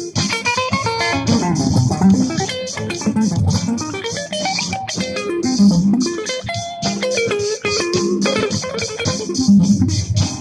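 Funky, bluesy jam on electric guitar, quick plucked notes and short phrases over a moving bass line.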